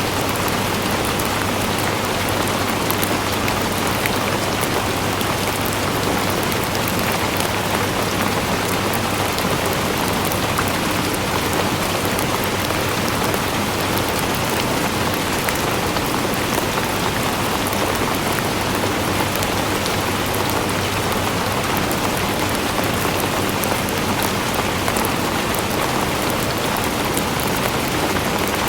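Steady heavy rain falling, a constant dense hiss of drops with fine pattering throughout.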